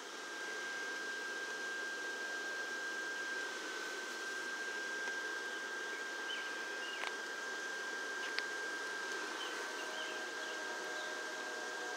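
Steady whirring hiss of the electric blower fans that keep inflatable yard decorations blown up, with a thin, steady high whine running through it and a couple of faint clicks.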